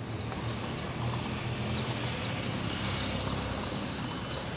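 Outdoor street ambience: small birds chirping in quick, repeated short calls over a steady low hum.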